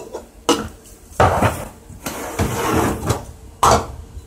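Mug, spoon and coffee things knocking and clinking while coffee is made: several sharp knocks, with a longer scraping rattle in the middle.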